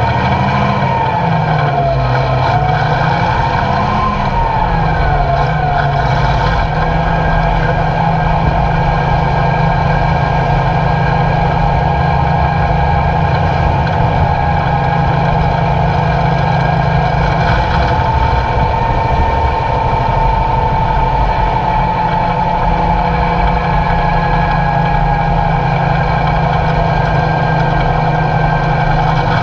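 Diesel engine of a 1942 Diamond T 980 heavy wrecker, a Hercules six-cylinder, pulling the truck along the road. Its pitch rises and falls a few times over the first six seconds, then holds a steady drone.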